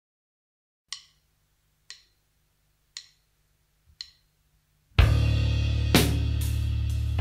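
A rock song starting: four short count-in clicks about a second apart, then the full band comes in loud with drums and cymbals about five seconds in.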